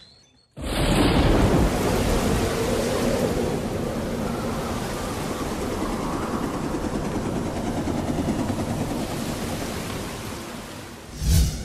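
Storm-like sound effect: a loud rush of rumbling noise starts suddenly about half a second in and holds, easing off slowly. Near the end a short swelling whoosh with a low boom comes in as a transition.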